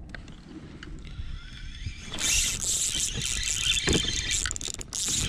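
Fishing reel squealing as a hooked bass is fought, starting about two seconds in and carrying on, with a couple of knocks of handling on the kayak; before it, low lapping of water against the kayak hull.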